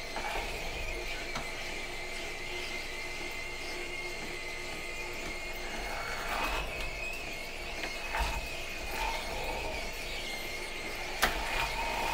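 Green Star twin-gear juicer running with a steady high whine and a mechanical squeal as beets are pressed down its feed chute with the plunger. A sharp click comes near the end.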